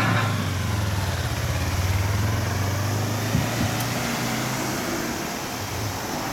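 Yamaha YZF-R25's parallel-twin engine running steadily as the motorcycle pulls away at low speed, becoming fainter after a few seconds. There is a brief thump about halfway through.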